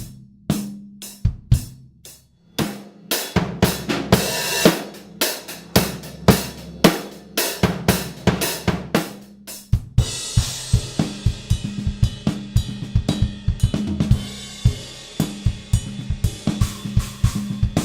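Acoustic drum kit played and recorded raw through a seven-mic close-mic set covering kick, snare, three toms and two overheads, with only panning and levels adjusted. Separate hits with a ringing drum tone come first, with cymbal crashes about three to five seconds in. From about ten seconds a fast run of drum strokes plays under steady cymbals.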